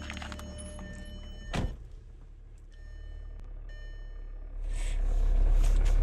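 A car door slammed shut with one heavy thunk, followed near the end by a steady low rumble coming up.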